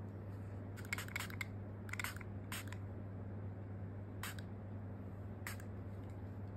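Finger-pump spray bottle of facial mist being pumped repeatedly, each pump a short hiss. Several quick sprays come close together at first, then two more spaced-out sprays.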